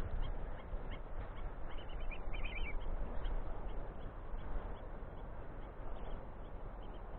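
Birds calling: a run of short, high calls repeating every fraction of a second, with a busier burst of calls about two seconds in, over a steady low outdoor noise.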